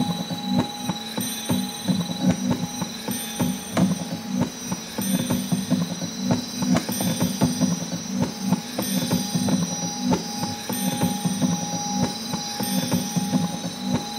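Experimental improvised performance sound: dense, irregular clicking and clattering over a low drone, with steady high tones. The whole texture repeats in a pattern about every two seconds, like a loop.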